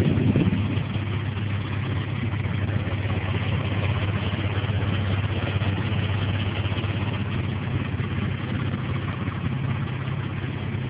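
Mitsubishi 6A13 twin-turbo V6, a DOHC 24-valve engine, idling steadily.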